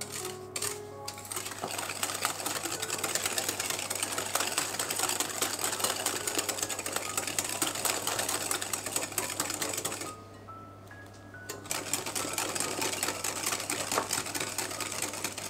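Wire whisk beating a wet pumpkin batter in a glass bowl: fast, continuous clicking of the wires against the glass. It stops for about a second and a half about two-thirds of the way through, then starts again.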